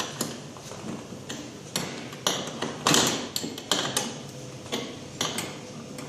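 A metal spanner tightening a nut on a bolt, clinking against the nut and the metal arm frame in about a dozen irregular sharp clicks and knocks.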